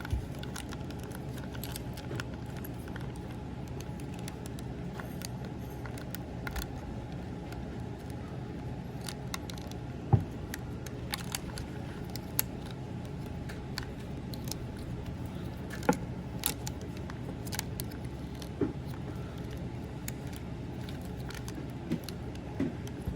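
Hard plastic parts of a Transformers action figure clicking and tapping now and then as they are handled and pressed into place, over a steady low background hum.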